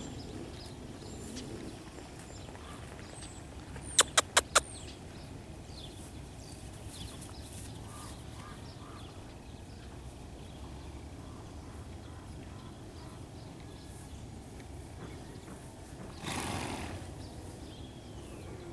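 Outdoor ambience: a steady low hiss with faint bird chirps, broken about four seconds in by four sharp, loud clicks in quick succession, and by a short rushing burst near the end.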